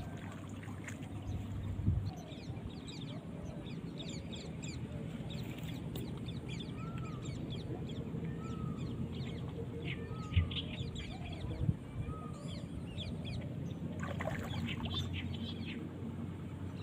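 Wild birds chirping and calling, with one short arching call repeated about every second and a half in the middle, over a steady low rumble. There are a few short knocks.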